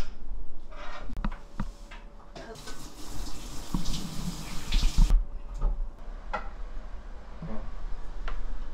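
Water running for about three seconds in the middle, with scattered light knocks and clinks before and after it.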